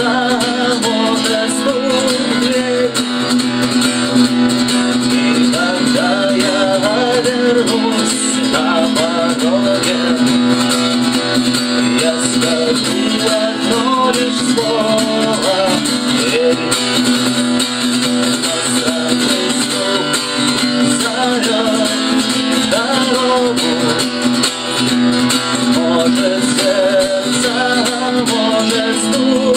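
Instrumental stretch of a guitar rock song: guitars strumming over a steady low note, with a melodic line moving above.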